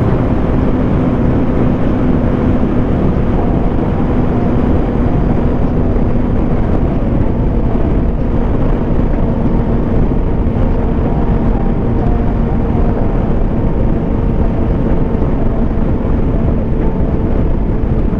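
Motorcycle engine running hard at high speed with heavy wind rush over the rider's microphone; the engine holds a fairly steady pitch.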